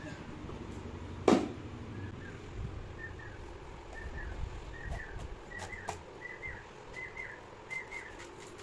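A single loud crack about a second in as a pumpkin splits apart on a boti blade. Then a bird chirps a short two-note call over and over, faint, about once every two thirds of a second.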